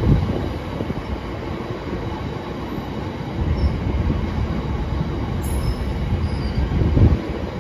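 A long rake of cement hopper wagons rolling past at close range: a steady rumble of wheels on the rails, with heavier knocks at the start and again about seven seconds in.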